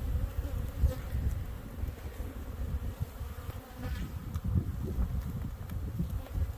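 Honeybees buzzing around an opened hive, a dense, flickering low hum with the occasional bee passing close by.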